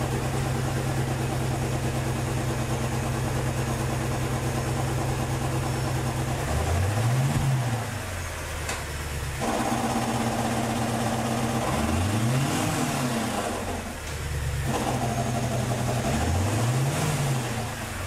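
Audi S8's 4.2-litre V8 running on its freshly installed exhaust, the first run after a six-speed manual swap. It idles steadily, then is revved briefly three times, each rev rising and falling back to idle.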